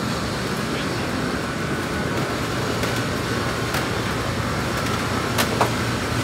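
Steady street noise, with a few short clicks near the end.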